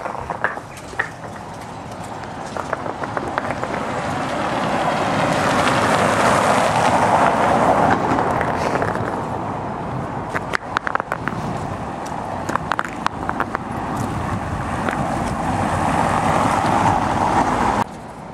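Tyre noise of vehicles rolling over a stone-sett cobbled street: it swells as one passes about seven seconds in, eases, and swells again near the end before cutting off suddenly, with scattered clicks in between.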